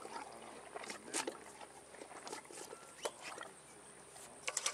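Faint, irregular clicks and short rustles, thickening into a quick cluster near the end, over a faint steady high-pitched whine.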